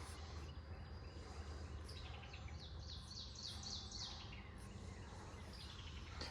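A bird singing faintly: a quick run of short, high, repeated notes about two seconds in, over a steady low outdoor hum.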